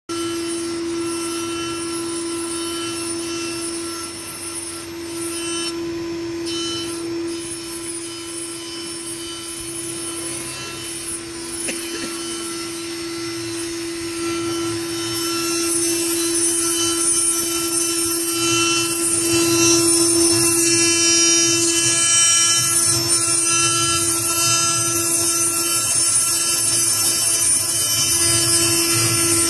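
Mini stone CNC router's spindle running with a steady whine. About halfway through, the sound grows louder and hissier as the bit grinds into the workpiece under a coolant stream.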